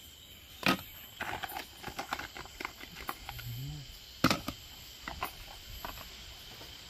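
Kitchen utensils and cookware clattering: two sharp knocks, about a second in and again about four seconds in, with lighter taps and clinks between. There is a brief hummed 'mm' in the middle.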